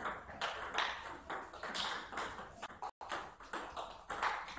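Table tennis rally: sharp clicks of the ball striking the rackets and bouncing on the table, several a second in an uneven rhythm.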